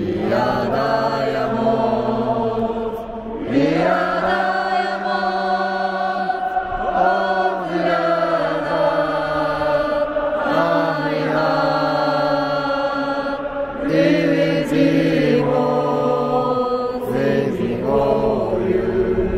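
A large stand of Urawa Reds football supporters singing a club song together in unison, in long held notes that step from pitch to pitch.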